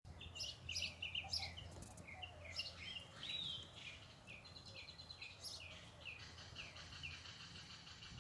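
Wild birds chirping: a run of quick, short, falling high chirps, with a steady high trill joining about four seconds in.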